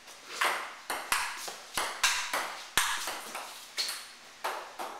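Table tennis rally: the ping-pong ball clicks sharply off the paddles and the table, about a dozen hits at two to three a second, stopping shortly before the end.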